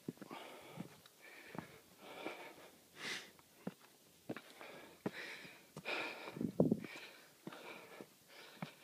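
Heavy breathing of a hiker climbing steep trail steps, a hard breath about every second, with short knocks in between.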